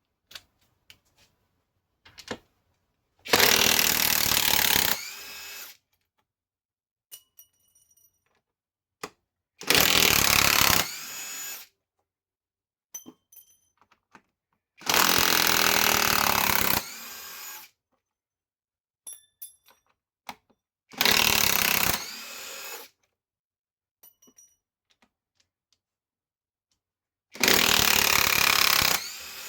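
Greenworks Pro mid-torque cordless impact wrench loosening fasteners in five separate runs, about six seconds apart. Each run is a loud burst of about two seconds, then a shorter, quieter stretch that ends in a falling whine as the trigger is let off. Faint clicks come between the runs.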